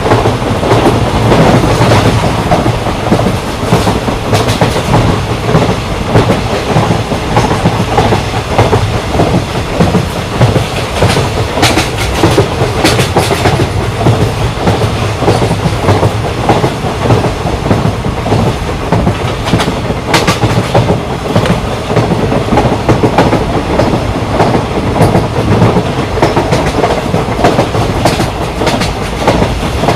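Indian Railways ICF passenger coach running at speed: a steady rumble of the coach with wheels clattering over the rail joints (clickety-clack). Sharper clacks stand out about twelve seconds in and again about twenty seconds in.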